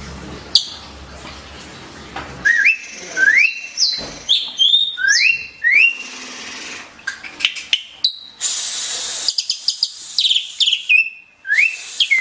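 Asian pied starling (jalak suren) singing: a run of loud, rising whistled notes repeated many times, broken by a harsh, rasping chatter about eight seconds in.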